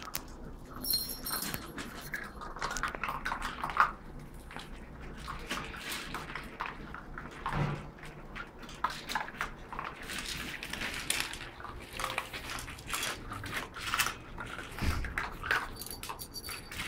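Chocolate Labrador puppies eating dry kibble together from a stainless steel bowl, with irregular crunching and clicking of kibble and teeth against the metal.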